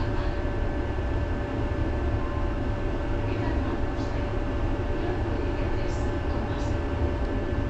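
City tram running, heard from inside: a steady low rumble with a constant hum over it and a few faint, short high sounds.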